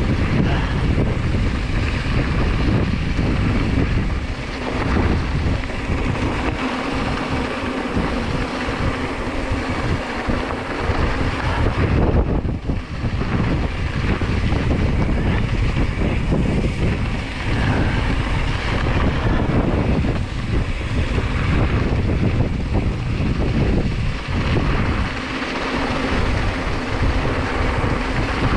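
Wind rushing over the microphone of a camera on a moving mountain bike, steady and loud, over the rumble of the bike's tyres on a dirt trail.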